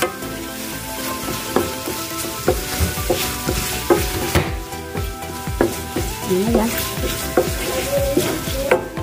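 Shrimp sizzling in a stainless steel frying pan, stirred with a wooden spatula that knocks and scrapes against the pan about twice a second.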